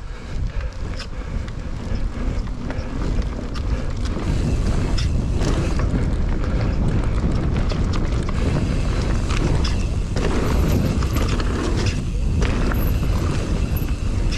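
Mountain bike ridden fast down a dirt jumps trail: wind buffeting the microphone and the tyres rumbling over dirt, with frequent short knocks and rattles from the bike. It builds over the first few seconds and then holds steady, with two brief lulls near the end.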